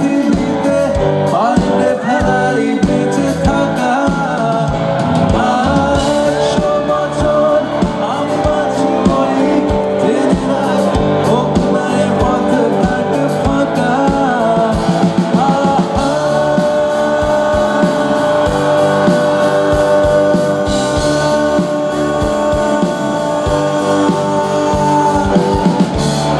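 A rock band song with a lead singer over guitar and drums, playing continuously with a steady beat.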